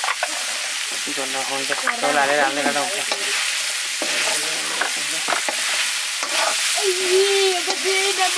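Chicken curry with onions frying and sizzling in a pot, stirred with a spoon that clicks and scrapes against the pot now and then.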